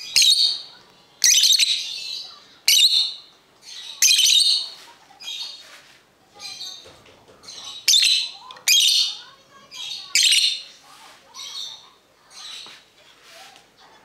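Cockatiel calling: about a dozen loud, short, shrill calls, roughly one a second, growing fainter in the second half.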